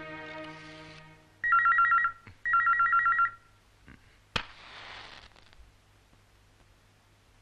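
Electronic telephone ringing: a warbling two-tone double ring, two short bursts about half a second apart, after background music fades out. A sharp click and a brief hiss follow about a second later.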